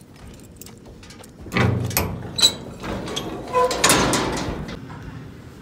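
Steel stock trailer door being unlatched and opened: metal knocks, rattles and scraping, with a brief ringing clang about four seconds in.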